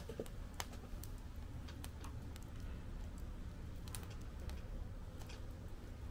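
Wood fire in a fire pit crackling, with scattered sharp pops at irregular intervals over a low, steady rumble.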